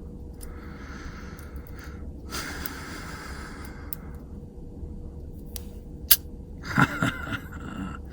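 Two long hissing breaths, then sharp metallic clicks from picking a Yale padlock, the loudest about six seconds in, as the lock gives way. A short vocal sound follows about a second later.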